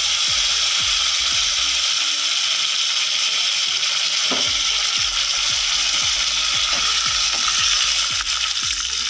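Fresh curry leaves and mustard seeds frying in hot mustard oil in a pan: a steady, loud sizzle with frequent small crackles.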